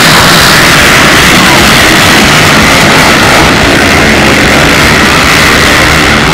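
A pack of racing quads (ATVs) accelerating away from a mass start, many engines running at once, loud and steady.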